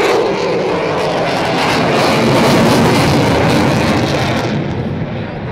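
Boeing F-15I fighter jet's twin turbofan engines passing overhead: a loud jet roar that swells to a peak about halfway through, then fades as the high hiss drops away near the end.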